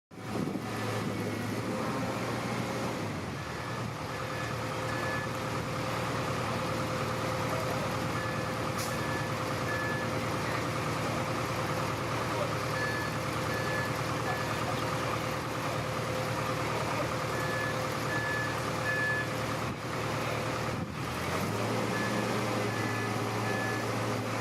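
Radio-controlled toy construction vehicle running: a steady electric motor and gear whine. A high beep sounds in groups of three every few seconds, like a reversing alarm. A deeper hum drops out about three seconds in and comes back near the end.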